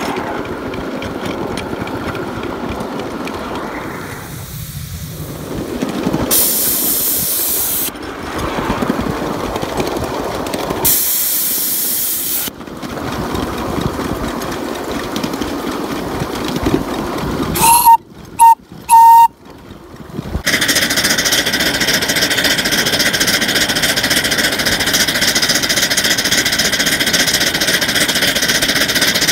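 Ridable live-steam miniature locomotive running with steam exhaust and hiss, with two hard bursts of hiss about 6 and 11 seconds in. Around 18 to 20 seconds its steam whistle gives three short, loud blasts. After that the locomotive runs on with a louder steady working sound as it pulls three loaded cars up a grade.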